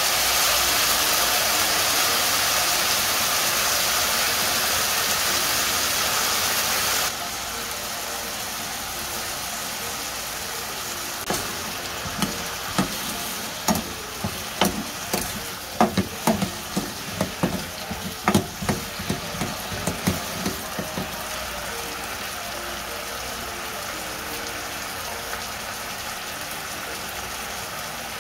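Cubed potatoes sizzling in soy sauce in a nonstick frying pan; the sizzle drops abruptly to a quieter level about seven seconds in. Midway, a wooden spatula knocks against the pan a dozen or so times as the potatoes are stirred.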